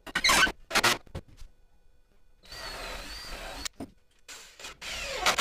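Cordless drill motor running in several short bursts and one steadier run of about a second, with a high whine, as it works into the wooden frame of a bench.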